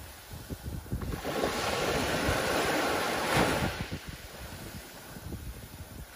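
Small waves breaking on a sandy beach and washing up the shore. The surf swells from about a second in, is loudest around three and a half seconds, then draws back and fades.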